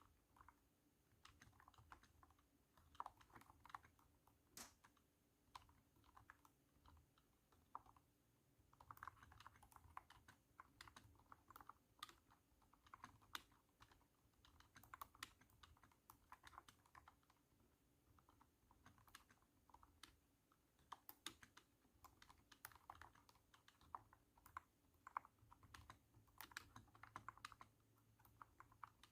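Typing on a cat-shaped keyboard: thunky keystrokes in quick runs, with short pauses between the runs.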